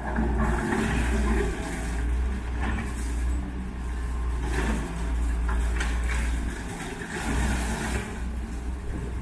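Diesel engine of a Doosan wheeled excavator running steadily while its bucket digs into and breaks up demolition rubble, with several crashes of concrete and debris through it.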